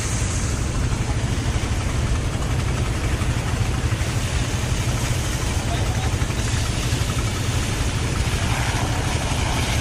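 Water pump engine running steadily, with the hiss and splash of high-pressure hose jets blasting flood silt off the ground.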